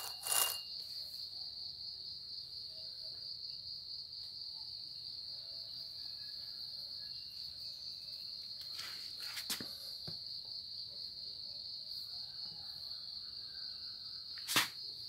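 Steady, high-pitched insect trill, with a few light handling knocks about half a second in, near the middle and near the end.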